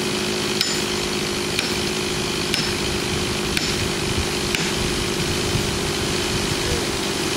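Chainsaw's two-stroke engine idling steadily, with a light tick about once a second.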